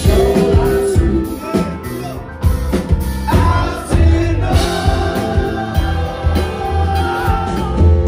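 A live rock band playing: a male lead singer holding sung lines over drums and electric guitar.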